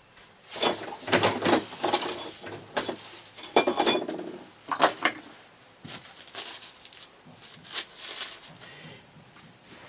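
Tools and drill parts clattering and clinking on a workbench as a hand-held electric drill is taken apart, with a run of irregular knocks and clicks.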